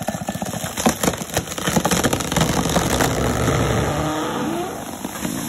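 Chainsaw engine running and revving, its pitch rising about four seconds in, with a few sharp knocks in the first second or so.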